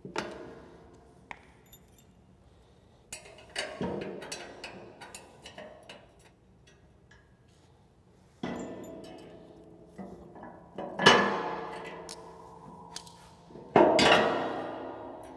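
Steel plow parts clanking and clinking as the manual angle handle assembly is worked loose and lifted off the plow's pivot plate and spring-loaded angle latch. There are several sharp metallic knocks that ring on, the two loudest in the last third.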